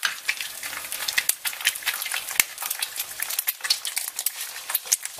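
Food sizzling in hot fat: a dense, steady crackle of many sharp little pops.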